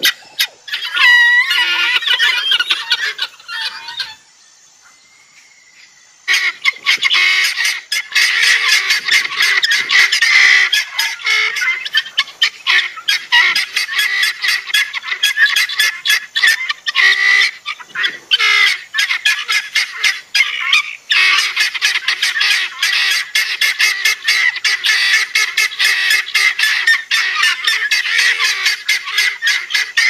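Helmeted guinea fowl calling: rapid, overlapping repeated calls, several a second, with a lull of about two seconds around four seconds in.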